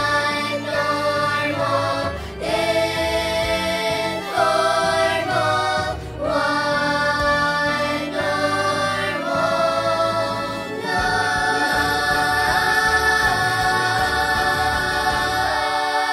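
Closing bars of a song: one singer's voice layered into several harmony parts over music, without clear words, moving through short chords and then holding one long chord near the end before it cuts off.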